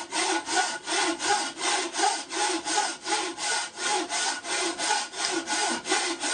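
Traditional Chinese wooden frame saw with a steel blade sawing through a very hard, dense hardwood in steady, even back-and-forth strokes. The blade makes slow headway, the sign of wood too hard for it to cut easily.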